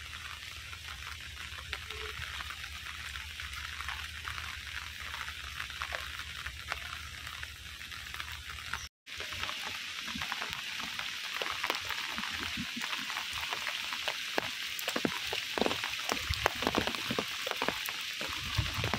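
Steady rain falling on floodwater: a dense, even hiss of drops hitting the water surface. The sound cuts out for a moment about nine seconds in, and afterwards individual drops patter more distinctly.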